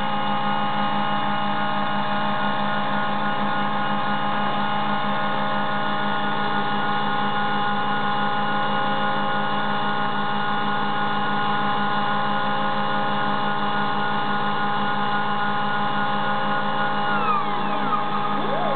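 Stepper motors of a CNC tool-and-cutter grinder whining at steady pitches over a low hum as the diamond wheel traverses along an end mill flute while the cutter turns to follow the spiral. Near the end the whine sweeps down and then rises again as the motors change speed for the wheel's retreat and return and the indexing to the next flute.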